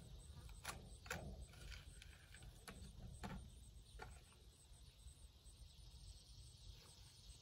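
Near silence, broken by a handful of faint knife clicks and taps in the first four seconds as a hot pepper is sliced open on a cutting surface, over a faint steady high hiss.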